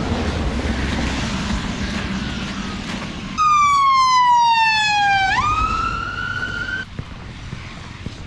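A siren: one loud pitched wail that starts suddenly, falls for about two seconds, jumps back up and rises again, then cuts off. Before it there is a steady rush like passing traffic.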